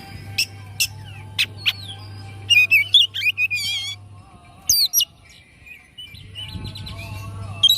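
Oriental magpie-robin (kacer) singing in the agitated, erratic 'kongslet' style. It gives a series of sharp whistled notes, then a fast warbling run of rising and falling notes about two to four seconds in, and more chattering phrases near the end. A low steady hum runs underneath.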